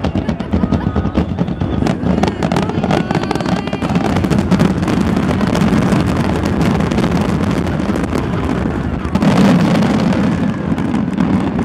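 Grand-finale fireworks barrage: aerial shells bursting in rapid, overlapping succession with no break between them, swelling louder about nine seconds in.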